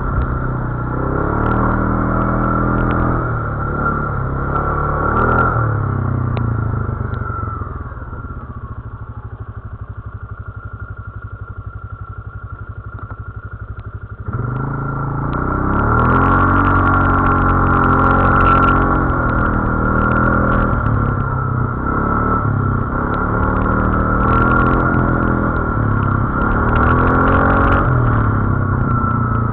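ATV engine revving up and down while riding off-road, with rattling and clatter. About a quarter of the way in it falls back to a quieter, steady run for several seconds, then picks up abruptly about halfway and revs again.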